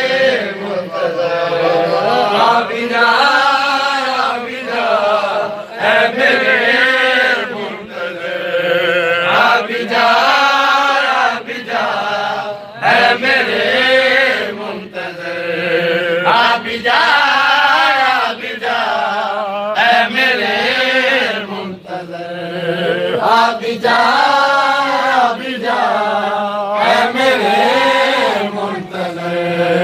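A group of men chanting an Urdu devotional qasida for Imam Mahdi together in long, repeated sung phrases.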